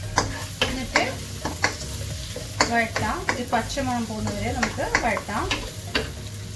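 Wooden spatula stirring chopped onions frying in oil in a nonstick wok: a steady sizzle under repeated scrapes and knocks of the spatula against the pan, about one or two a second.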